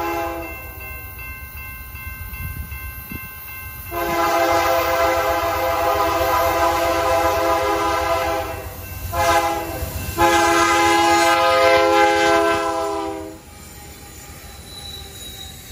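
A BNSF diesel freight locomotive's multi-tone air horn sounds the grade-crossing warning. The end of one blast fades out about half a second in; after a pause come a long blast, a short blast and a final long blast that stops about thirteen seconds in. Underneath, the locomotives and tank cars rumble past the crossing.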